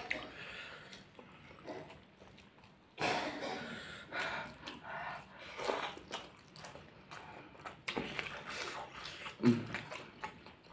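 Close-up eating sounds of spicy instant ramen noodles eaten by hand: wet chewing and slurping in uneven bursts, with sticky sounds of fingers working the noodles.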